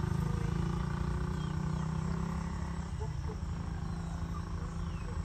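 Outdoor dawn ambience: a steady low rumble that eases after about three seconds, with a few faint high bird chirps.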